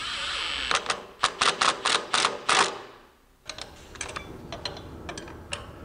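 Hand ratchet clicking in quick runs, about four clicks a second, as the bolt through a heim joint sway-bar link is tightened. There is a short pause about three seconds in, then lighter, sparser clicks.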